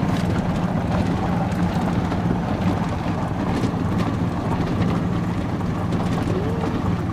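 Golf cart driving along a gravel track: a steady motor hum under the rough rumble of the tyres on the gravel and wind on the microphone.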